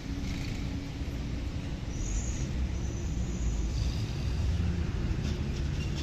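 Backhoe loader's diesel engine running steadily, a low, even drone, with a few faint high chirps about two seconds in and light clicks near the end.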